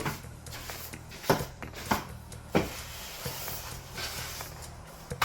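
Broom sweeping out an empty window opening: brushing with several sharp knocks as the broom strikes the frame.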